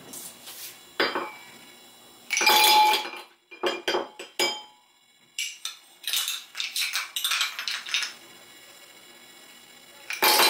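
Ice cubes dropped into a glass mug, clinking and clattering against the glass in several separate bursts, loudest about two and a half seconds in and again near the end.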